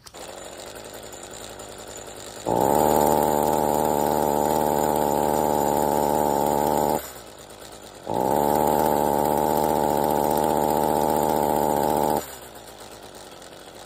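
Echo SRM-225 string trimmer's two-stroke engine running. Twice, for about four seconds each, it gets much louder and holds a steady note, then drops back sharply to a quieter run, as the throttle is squeezed and released on a trimmer with a won't-throttle-up fault.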